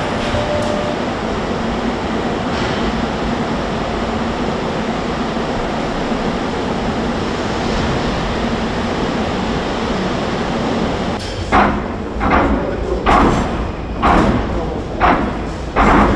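A steady rushing noise, then from about two-thirds of the way in a run of loud, heavy knocks, roughly one a second.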